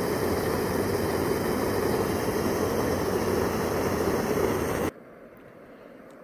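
A loud, steady rushing noise that cuts off abruptly about five seconds in, leaving only faint background sound.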